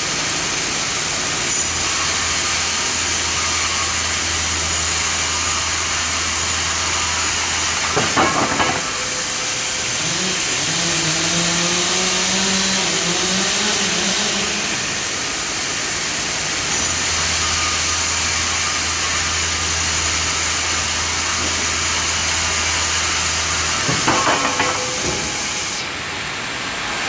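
Jabłoński PTP1309C vertical band sawmill running, cutting through timber twice, each cut lasting about six or seven seconds. Each cut ends with a cluster of knocks, and between the cuts the machine gives a whine that slowly rises in pitch.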